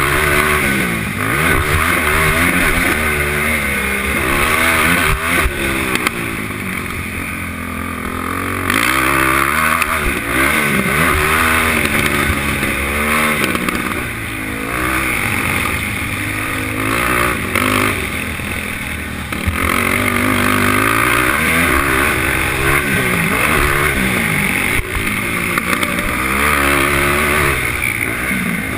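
Sport quad ATV engine being raced hard, revving up and dropping back again and again as the rider works the throttle and gears. The pitch keeps rising and falling every second or two, with brief lower, softer stretches about eight and twenty seconds in.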